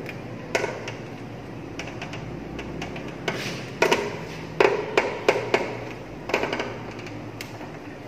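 Irregular sharp clicks and knocks of contactor and relay parts being handled and fitted in a motor control panel, thickest in the second half, over a faint steady hum.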